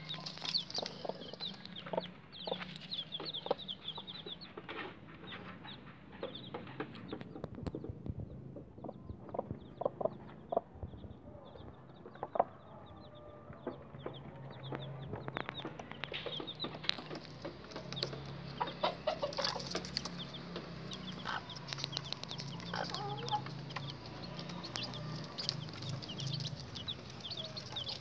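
Bangkok chicken chicks peeping in many short high calls, with the mother hen clucking low and beaks tapping grain on cardboard. The peeping thins out in the middle and picks up again from a little past halfway.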